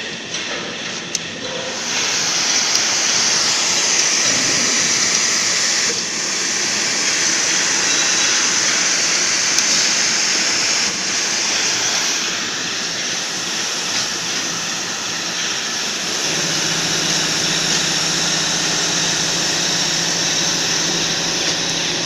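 Submerged-arc welding equipment running: a loud, steady hiss that sets in about two seconds in, joined by a low steady hum about three-quarters of the way through.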